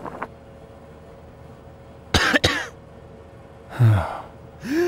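Two sharp coughs about two seconds in, then a low throat-clearing grunt and a short rising-then-falling voiced sound near the end.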